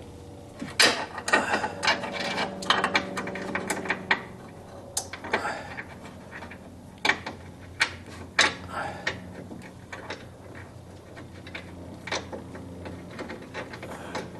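Hand tools at work on metal: a ratchet wrench clicking in short, irregular runs, with metal clinks and rattles, as bracket bolts are threaded in.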